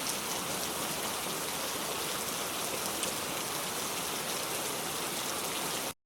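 Heavy rain falling steadily, an even hiss with the odd sharper drop, cutting off suddenly just before the end.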